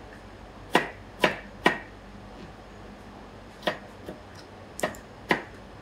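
Chef's knife dicing tomato on a cutting board: the blade knocks sharply against the board three times in quick succession about a second in, then after a pause four more times at an uneven pace.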